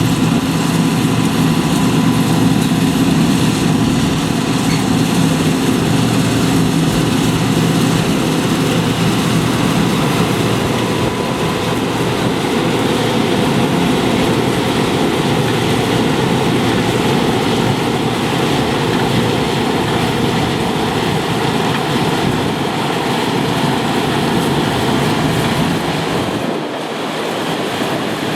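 John Deere combine harvester running steadily at work, a dense, loud mechanical noise over a low engine hum. The low hum drops away near the end.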